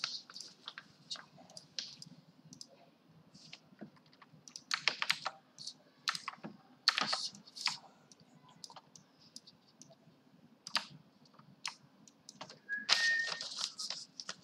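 Computer keyboard keys clicking in irregular bursts, with a denser flurry near the end.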